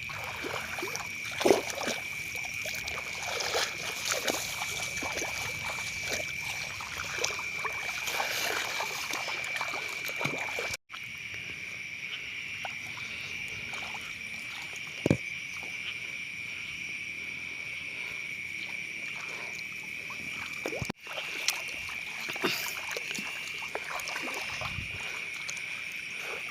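Steady high-pitched drone of a night-time chorus of small calling creatures, with scattered splashes and sloshing of shallow water.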